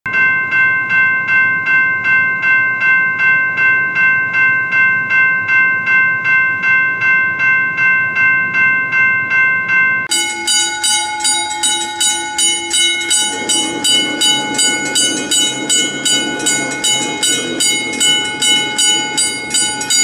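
Railroad crossing warning bells. A US crossing bell rings steadily, about two to three strikes a second. About halfway through it gives way to a Brazilian crossing bell with a different, faster ring, and a rushing rumble joins it for a few seconds.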